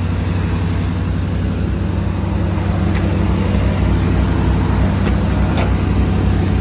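Vehicle engine idling steadily with a low, even hum, with a couple of faint ticks about halfway through and near the end.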